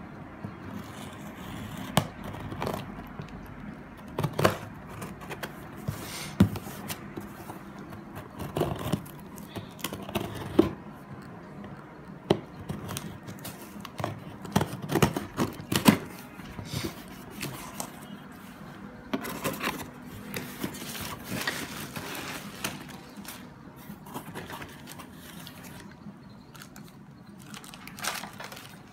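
Knife slitting the packing tape on a cardboard shipping box, with scraping, tearing and irregular knocks and rustles as the box is handled and opened.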